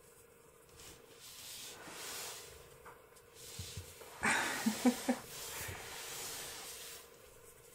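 Domestic cat curled in a crocheted bed, making soft breathing sounds about a second long each. About four seconds in there is a louder rustle with three short low sounds close together.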